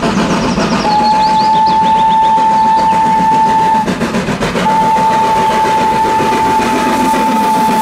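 Steam locomotive working a passenger train, its running and exhaust noise loud and continuous, while it sounds its whistle in two long single-note blasts: the first starts about a second in, the second just after the middle and lasts to the end.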